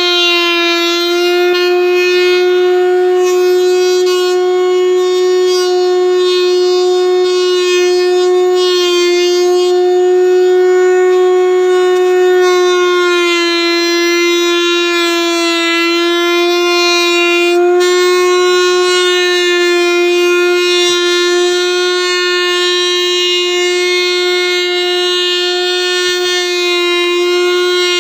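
Table-mounted router running under load with a high, steady whine as a wooden strip is fed past its profile bit to cut cornice molding. The pitch dips slightly a few times as the cut bites.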